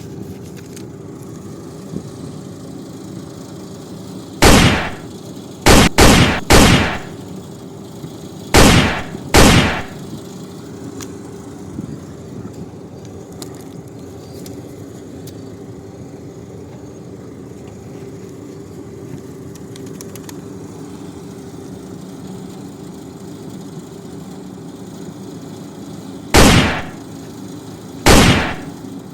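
Toy guns firing about eight loud, sharp shots in groups: one about four seconds in, three in quick succession around six seconds, two around nine seconds and two near the end, over a steady motor hum.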